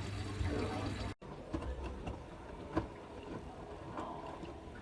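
Hotpoint WT761 Ultima washing machine with water running and splashing inside it, over a steady low hum. About a second in it cuts off abruptly, leaving a quieter stretch with a few light clicks.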